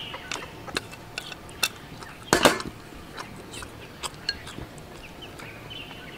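Chopsticks clicking and scraping against a metal pan and a porcelain bowl as food is pushed out of the pan. A louder knock comes about two and a half seconds in as the pan is set down on the wooden table. Faint bird chirps are in the background.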